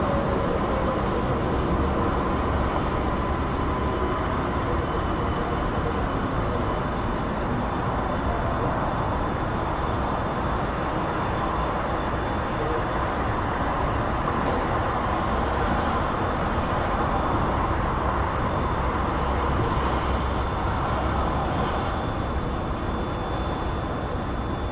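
Continuous rush of distant busy motorway traffic, a steady, even wash of tyre and engine noise with a faint steady whine over it.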